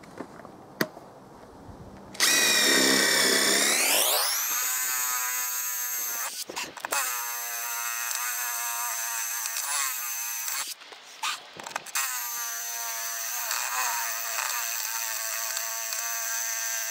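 DeWalt XR impact driver spinning an 8 mm multi-material hex-shank bit into a concrete paving slab at top speed: about two seconds in the motor winds up with a rising whine, then runs steadily with two brief let-offs. The driver is struggling in the concrete, the bit only about halfway through.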